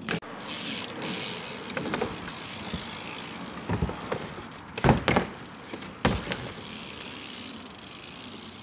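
BMX bike rolling on asphalt with its tyres hissing and the freewheel ticking, broken by several sharp knocks of the bike hitting the plywood quarter pipe and landing. The loudest knocks come about five and six seconds in.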